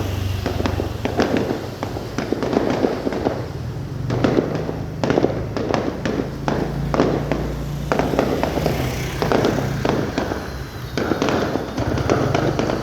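Fireworks display: a dense, continuous run of bangs and crackle, many bursts overlapping every second, over a steady low hum.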